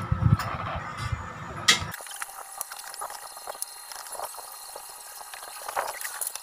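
Knocks and clicks from handling the fan's wires and push-button switch, one sharp click just before two seconds in; then a soldering iron on the wire joints, a faint irregular crackle and sizzle with scattered small clicks.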